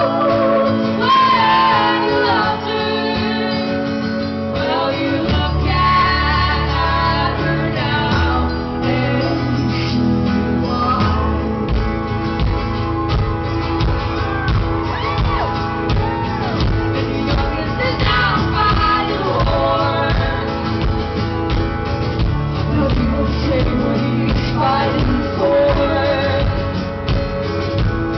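Live folk-rock band playing with women singing over guitar, recorded from the audience in a club. Heavy bass comes in about five seconds in, and the recording sounds dull, with no treble.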